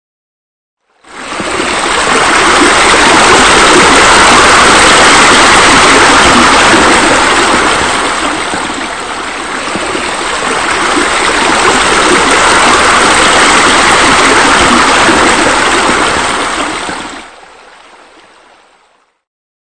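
Loud, steady rushing and splashing of water from pool bubblers. It starts about a second in, dips briefly around the middle, and fades away near the end.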